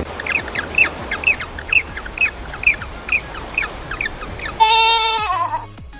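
A bird's rapid series of short, high-pitched calls, each dropping in pitch, about two or three a second; about four and a half seconds in, a single bleat that falls in pitch takes over.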